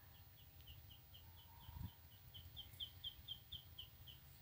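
Faint bird call: a rapid run of short high chirps, about four or five a second, growing louder partway through and then stopping near the end, over a low background rumble.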